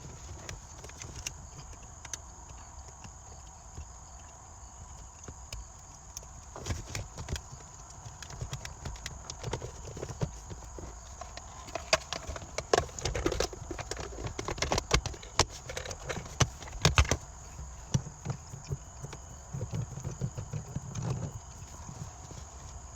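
Irregular clicks, taps and knocks of hands connecting an air-fuel ratio gauge's wiring and plugs behind the car's dash trim, busiest in the middle.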